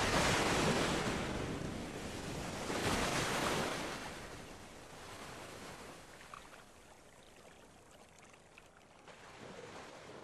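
Waves washing: surges of noise, the loudest at the start and about three seconds in, then fading away.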